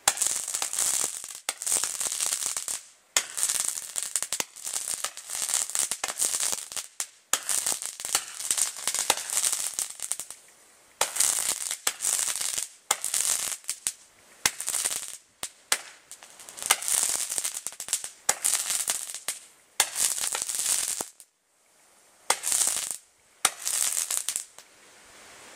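A consumer fireworks cake ('Laser Beam' CP450), lit upside down, firing shot after shot of crackling balls. Each shot is a hissing, crackling burst of about a second, with short gaps between them. The shots stop shortly before the end.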